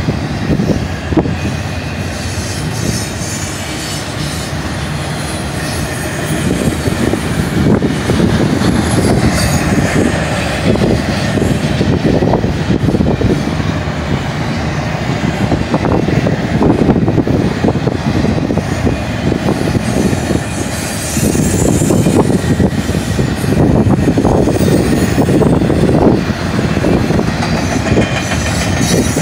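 BNSF double-stack intermodal freight train passing close by at speed: a steady, heavy rumble of steel wheels on rail with the cars rattling and a stream of wheel clicks and knocks.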